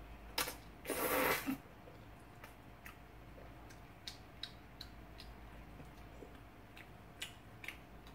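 A person slurping udon noodles from spicy stir-fried sundae: one short slurp, then a longer, louder one ending about a second and a half in. Then quiet chewing with scattered soft, wet mouth clicks.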